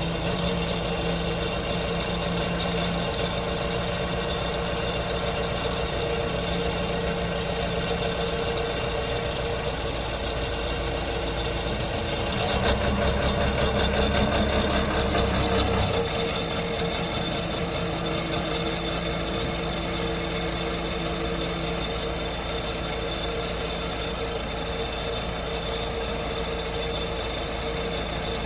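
JCB 214 Series 3 backhoe loader's diesel engine running steadily, growing louder for about three seconds halfway through.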